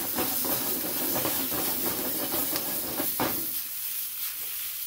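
Sliced peppers and green vegetables sizzling in a hot stainless skillet over high heat while the pan is moved to toss them; the sizzle thins out about three seconds in, leaving a steady hiss.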